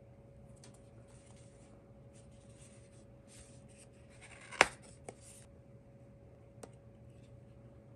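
Unboxing handling: packaging being rubbed and rustled in short stretches, with one sharp knock about four and a half seconds in and a couple of lighter clicks after it, over a faint steady hum.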